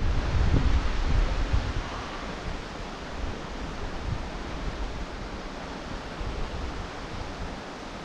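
Steady rushing of water from a small waterfall inlet, with wind buffeting the microphone, heaviest in the first two seconds.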